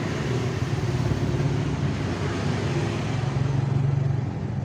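A motor vehicle engine running steadily, a continuous low hum with road noise.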